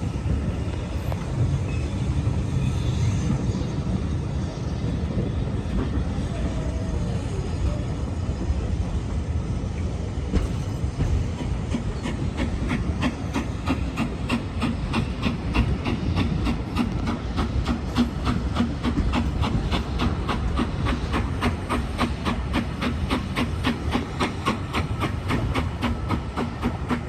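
A train running on the track, a steady rumble with a regular clickety-clack of wheels over the rail joints setting in about ten seconds in.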